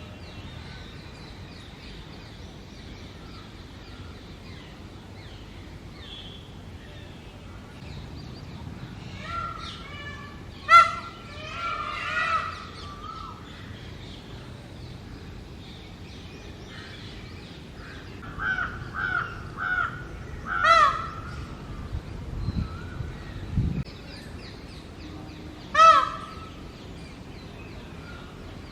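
Male Indian peafowl (peacock) giving its loud breeding-season calls: a sharp call about eleven seconds in, a rougher longer one just after, a run of four short repeated calls around twenty seconds, and a last loud call near the end. Small birds chirp faintly in the background.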